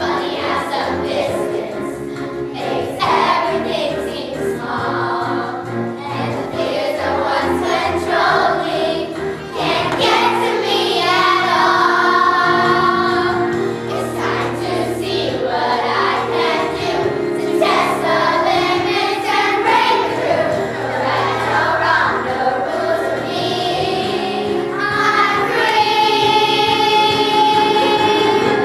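Children's choir singing together with instrumental accompaniment, ending on a long held note.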